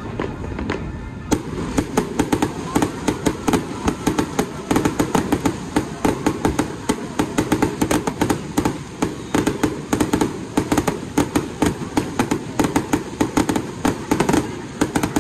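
Fireworks display going off: a rapid, continuous run of bangs and crackles, several a second, over a steady low rumble.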